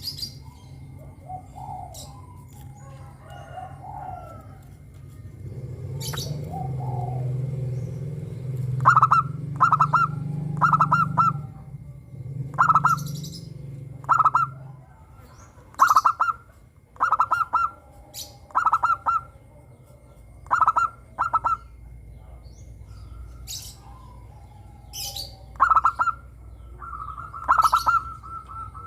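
Zebra dove (perkutut) singing its staccato cooing phrases, repeated about once a second from about a third of the way in, pausing for a few seconds, then resuming near the end. Sharp high chirps of other small birds sound throughout, and a low hum is heard for several seconds as the song starts.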